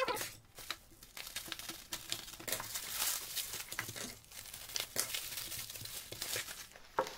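Plastic packaging wrap crinkling and rustling in irregular bursts as it is pulled off by hand.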